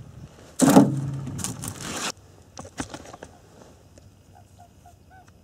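A burst of rustling, scraping noise beginning about half a second in and lasting about a second and a half, then quiet with a few faint short chirps near the end.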